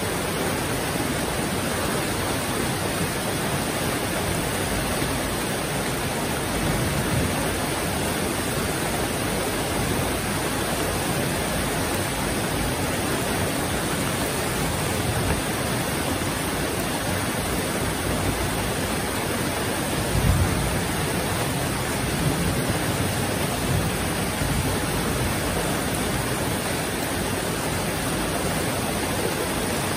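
Heavy rain falling steadily, a dense even hiss, with a brief low rumble about twenty seconds in.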